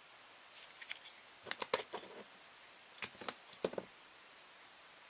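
Small clicks and taps of hands handling tools and kit parts on a work surface, in three short clusters.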